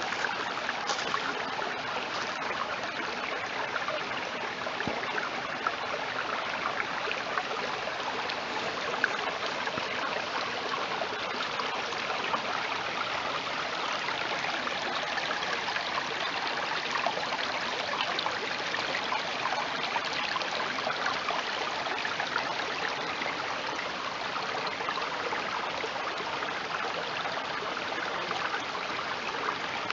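Shallow creek running over rocks: a steady trickle of water.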